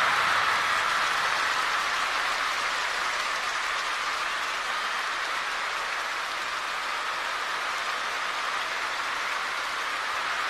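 Large arena crowd cheering and applauding, loudest at the start and slowly easing off.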